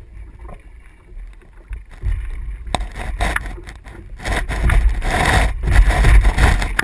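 The camera's own sound on a small RS Q'ba sailing dinghy: water sloshing against the hull and wind buffeting the microphone. It grows louder about halfway through, with a few sharp knocks along the way.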